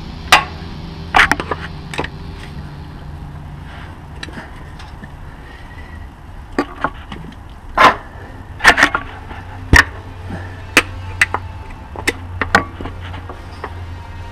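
Irregular sharp knocks and taps of metal on metal, about a dozen, as tools pry and tap at the front differential cover to break its gasket seal. The loudest knocks come in a cluster about halfway through.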